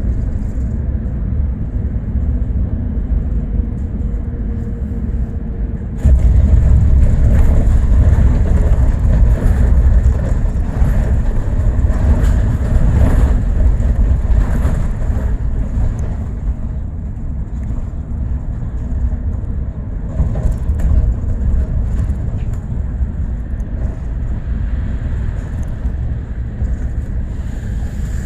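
Steady low rumble of a moving bus's engine and tyres heard from inside the bus, jumping suddenly louder and brighter about six seconds in, then settling back down.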